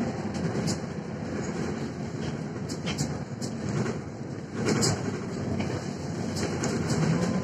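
Cabin noise of a Mercedes-Benz Citaro diesel city bus under way: a steady engine and road drone with frequent light rattles and clicks from the interior fittings, and a louder clatter a little past halfway.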